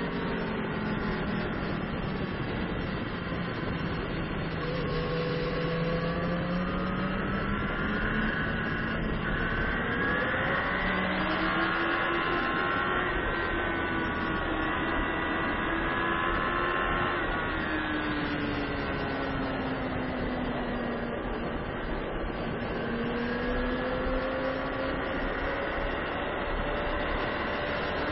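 Sport motorcycle engine at racing speed on a track, heard onboard, with wind rush over the camera. The engine's pitch climbs as it is run up through the gears, drops sharply about two-thirds of the way in as the rider shuts off for a corner, then rises again near the end.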